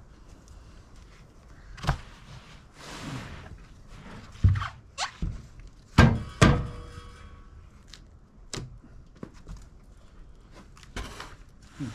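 A series of heavy wooden thunks and knocks as sawn maple lumber is handled and set down at the sawmill, with a brief scraping sweep between them. The two loudest knocks come close together past the middle, and the second is followed by a short metallic ring.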